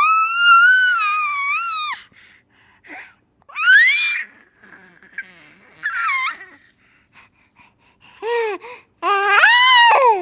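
Baby squealing in high-pitched, gliding vocal calls: one long squeal of about two seconds at the start, shorter rising squeals around the middle, and two more near the end.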